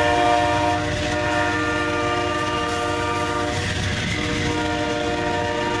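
Amtrak GE Genesis P42DC locomotive's K5LA five-chime air horn sounding one long, steady chord, its lowest note dropping out briefly about three and a half seconds in, over the low rumble of the train on the rails.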